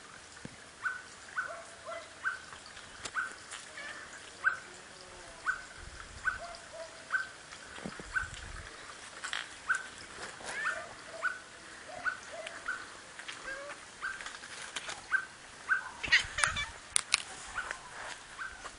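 An animal's short, high calls repeated steadily about twice a second, with a few sharp clicks near the end.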